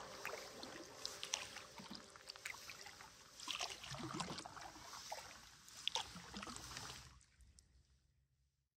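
Quiet paddling sounds from a canoe: water trickling and dripping with a few soft paddle splashes, fading out to silence about seven seconds in.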